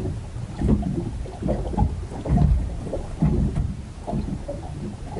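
Small waves slapping and lapping against the side of a small moored wooden fishing boat: irregular low slaps about every half second to a second.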